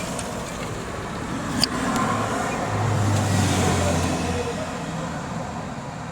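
Carbureted engine running after a carburettor swap, with one sharp pop about one and a half seconds in. The engine note then swells louder for a couple of seconds before settling back.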